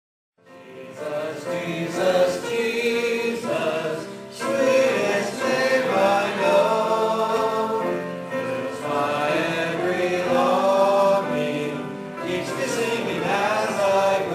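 Praise band music with several voices singing together over guitars and drums, fading in about half a second in.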